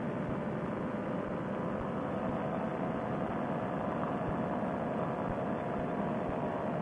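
Steady drone of a paramotor trike's engine and propeller in cruising flight, heard muffled and narrow through a Bluetooth helmet-headset microphone.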